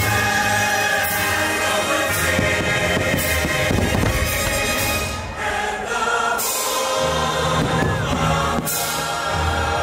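Show soundtrack music with a choir singing long held notes over orchestral backing and a pulsing low beat, broken every second or two by short sharp crashes.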